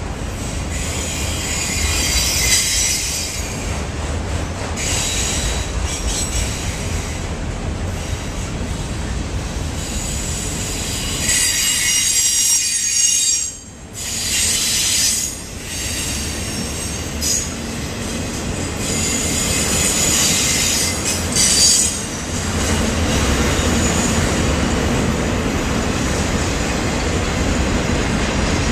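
Norfolk Southern freight cars rolling past close by, steel wheels rumbling steadily on the rail. Several bouts of high-pitched wheel squeal come and go; the longest is about halfway through and another comes around two-thirds of the way.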